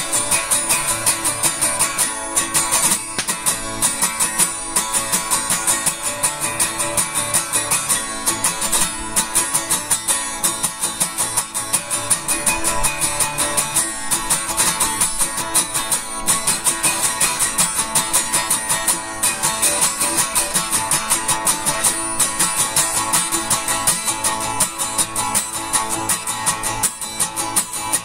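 Guitar music, strummed in a fast, even rhythm.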